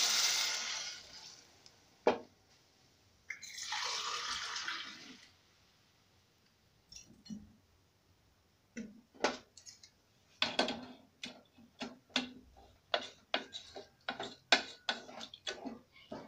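Two glasses of water poured into a hot aluminium pot of frying rice and beef, each a short hissing rush: one at the start and one about three to five seconds in. From about nine seconds on, a metal spoon knocks and scrapes against the aluminium pot in quick, irregular clicks as the rice and water are stirred.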